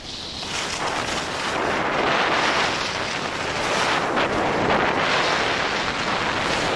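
Wind rushing over the microphone of a camera moving down a ski slope. It builds over the first two seconds, then holds steady with small surges.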